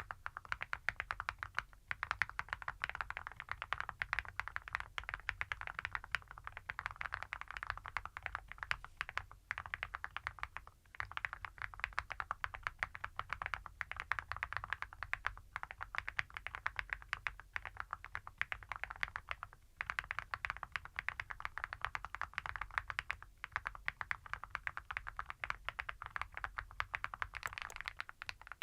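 Rapid typing on a mechanical keyboard fitted with full-metal Awekeys keycaps over Epomaker Creamy Jade switches, with a heavy, clacky sound. The keystrokes run on in quick succession, with a few short pauses.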